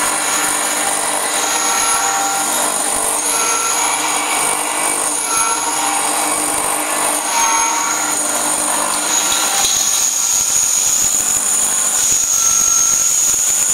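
Cocoa liquor grinding mill running steadily while it grinds cocoa into paste. Its motor gives a high, steady whine.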